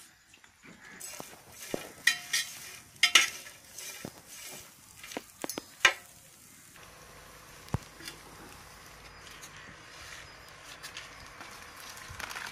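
A metal spoon stirring small dried fish in an aluminium basin, with sharp clinks and scrapes of metal on metal in the first half. After that only a fainter steady hiss with an occasional tick.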